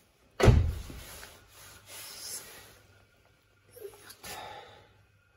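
Used automatic transmission fluid and air sputtering from the return-line drain hose into a bucket, in uneven bursts: the first and loudest about half a second in, another about four seconds in.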